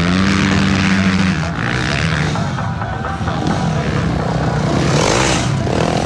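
Several off-road motorcycle engines running at once on a dirt track, their pitch rising and falling as the riders throttle on and off, with a harsher, hissier rev about five seconds in.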